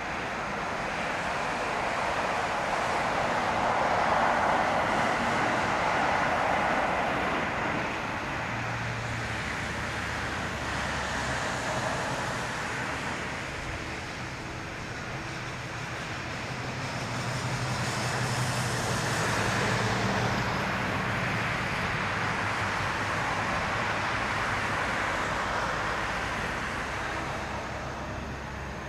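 Distant Boeing 747-400 freighter taxiing on its four jet engines. It is a steady rumble and hiss that swells and fades twice.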